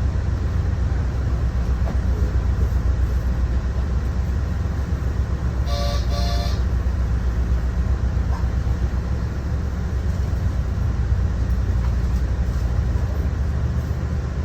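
Door-closed confirmation buzzer on a transit vehicle sounding twice in quick succession about six seconds in, over the steady low rumble of the vehicle.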